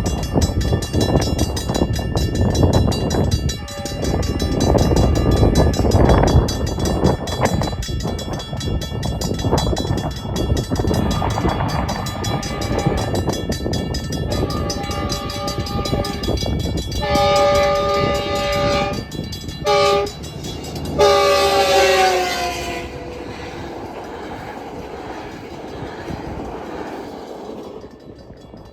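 A Metrolink F125 locomotive's K2 air horn blows several blasts of its multi-note chord over the loud rumble and clatter of a commuter train passing at speed. The loudest and longest blast comes a little past the middle. The last blast slides down in pitch as the locomotive goes by, and the train noise then fades away.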